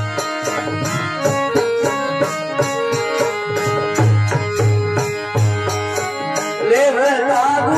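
Instrumental passage of a Marwari folk bhajan: harmonium playing the melody over a steady hand-played dholak beat with deep bass strokes, and a plucked tandura. A singer's voice comes in near the end.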